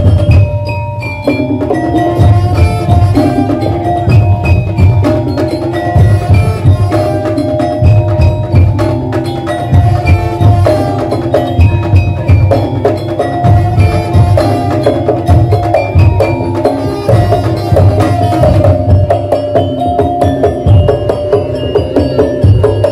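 Madurese daul percussion ensemble playing: fast, dense drumming with short tuned mallet-percussion notes carrying a melody over it.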